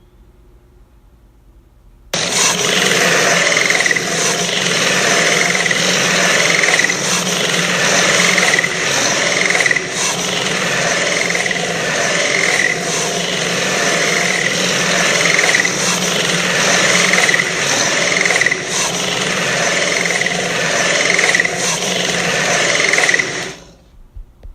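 King Ghidorah monster sound effect: a loud, harsh, rattling noise that starts abruptly about two seconds in, pulses with a shrill accent a little more than once a second, and cuts off after about twenty seconds.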